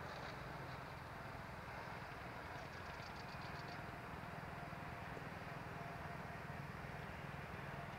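Distant jet aircraft engines running: a steady low rumble and hiss with a faint high whine.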